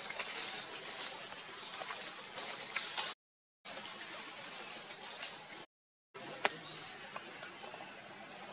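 Outdoor ambience dominated by a steady high-pitched insect drone, broken twice by short gaps of dead silence, with a few faint ticks and a brief rising chirp near the end.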